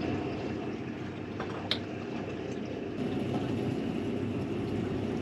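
Steady wind and water noise on a boat drifting at sea, with a single light click about a second and a half in.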